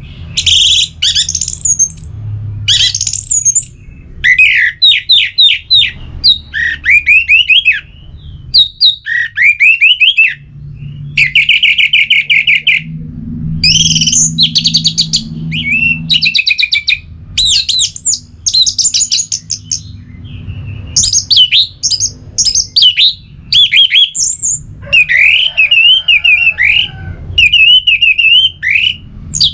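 Orange-headed thrush singing: a long string of varied, rapid phrases of whistled, trilled and slurred notes, each phrase a second or two long with short pauses between.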